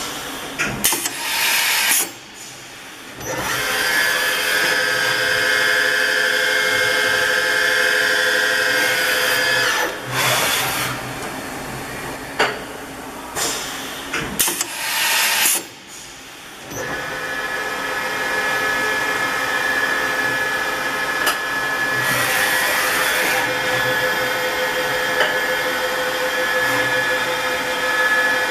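Dahlih DL-MCV 1020 BA CNC vertical machining centre running its axes: a steady mechanical whine of several tones as the table and spindle head traverse. The whine stops and starts, and short noisy bursts break in near the start, around the middle and a little past two-thirds through.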